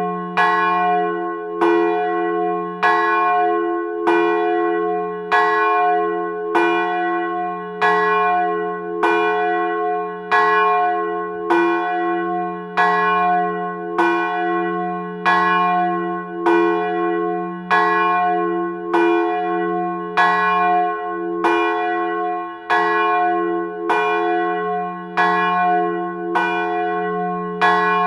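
A single church bell tolling steadily, struck about once every 1.2 seconds at the same pitch, each ring carrying on into the next strike.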